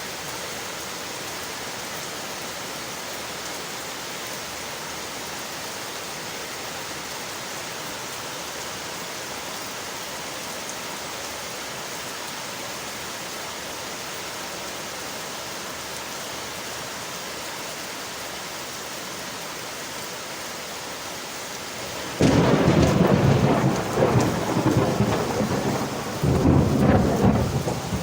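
Steady rain hiss on windowpanes; about three-quarters of the way through, a loud rumble of thunder breaks in suddenly and rolls on, swelling and easing, over the rain.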